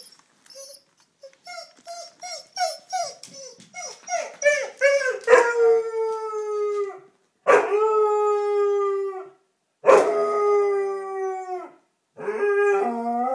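Basset hound howling. A run of short yipping notes, about two a second, quickens and builds into long drawn-out howls. There are three howls of about two seconds each, each sliding slightly down in pitch, and a fourth begins near the end.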